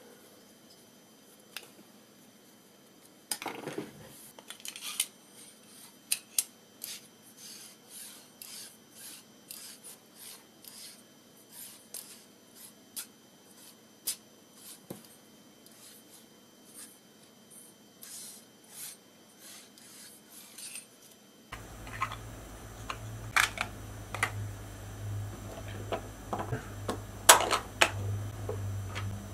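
Hand assembly of 3D-printed plastic blocks with bolts and bearings: a thin hand tool turning a bolt gives a run of light clicks and taps, then louder knocks and clacks of the plastic parts against a metal rod. A steady low electrical hum comes in suddenly about two-thirds of the way through.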